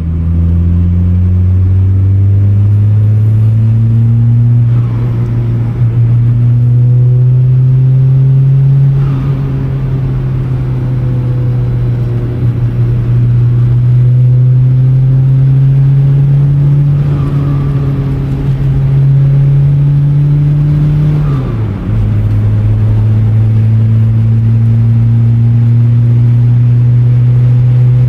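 Volkswagen Jetta Mk2 1.6 turbo-diesel engine running under load, its pitch climbing slowly over long stretches and dropping sharply about three-quarters of the way through, with the turbocharger whistling.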